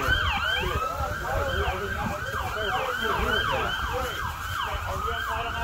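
Emergency siren in fast yelp mode, its pitch rising and falling about three times a second, from fire-rescue units responding to the boat fire.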